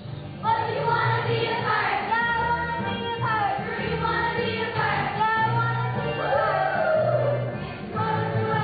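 A group of children singing a song together over an instrumental accompaniment with steady bass notes, coming in about half a second in.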